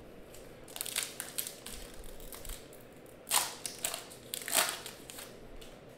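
Foil wrapper of a hockey card pack crinkling as it is torn open by hand, with two louder crackling rips a little past the middle.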